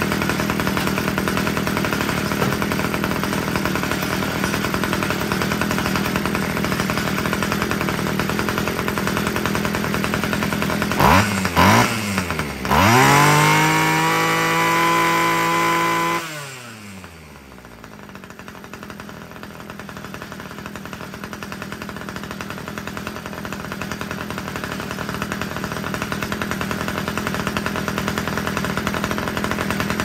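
Homelite string trimmer's two-stroke engine running steadily at idle, blipped twice about eleven seconds in, then revved up and held at high speed for about three seconds before dropping back to a quieter idle. It now runs and holds idle with its carburetor's low-end mixture screw turned slightly richer, after running too lean and dying on its own.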